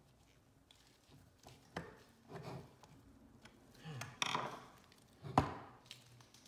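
A paper shredder's metal cutter assembly and its small plastic pieces being handled on a desk: a few scattered clatters and clinks, the loudest a sharp knock a little past five seconds in.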